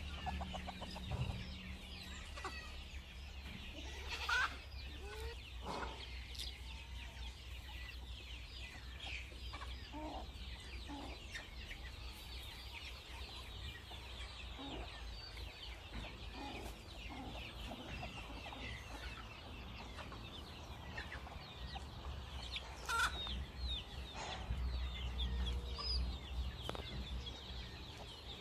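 A flock of free-range desi chickens clucking and calling, with many quick high chirps throughout and a few louder single calls. A steady low hum runs underneath.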